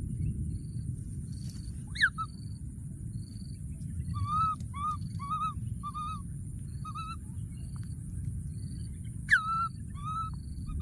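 Baby monkey crying: two shrill calls that slide steeply down in pitch, about two seconds in and near the end, and a run of short wavering whimpers between them. A short high chirp repeats about once a second throughout.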